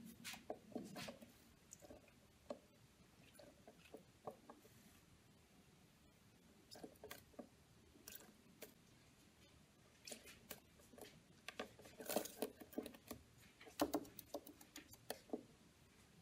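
Masked lovebird bathing in a plastic bird bath: quiet small splashes and taps of beak and feet on water and plastic, in scattered bursts that are busiest about ten to fifteen seconds in.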